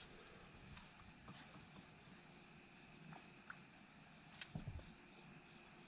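Steady high insect chorus, crickets chirring continuously. A few faint ticks and one soft low knock come near the end.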